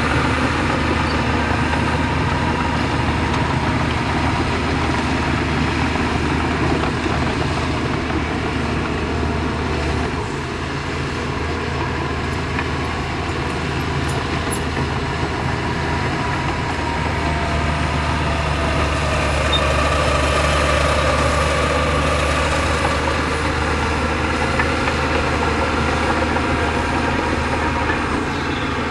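Heavy diesel engine of earthmoving machinery running steadily; its note drops a little about ten seconds in and rises again several seconds later.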